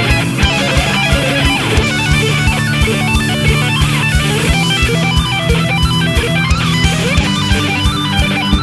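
Hard rock song: distorted electric guitar over bass guitar and a steady drum beat, with a lead line of quick stepping notes.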